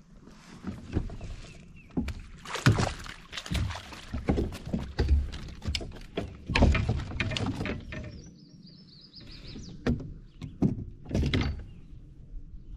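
A bass being landed into a plastic pedal kayak: a rapid run of knocks, thumps and splashes as the fish thrashes in the landing net against the hull. The noise comes in two busy stretches with a short lull between.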